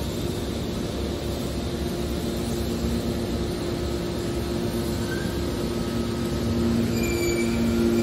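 Hydraulic scrap metal baler running: a steady mechanical hum with two held tones that grow stronger near the end, and a few short high squeals in the second half.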